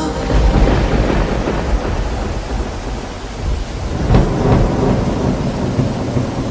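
Recorded thunderstorm sound effect: steady rain hiss with rolling thunder that swells about half a second in and again about four seconds in, cutting in abruptly where the music stops.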